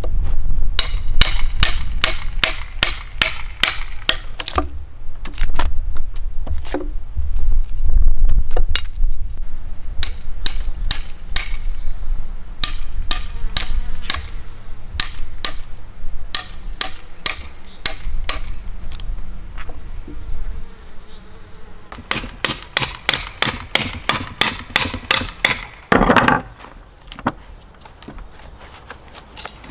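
Hammer striking a steel chisel driven into a wooden log, in quick runs of about four blows a second with a thin metallic ring, as the log is hollowed out. Near the end the wood tears as a split chunk is pried away. Insects buzz underneath.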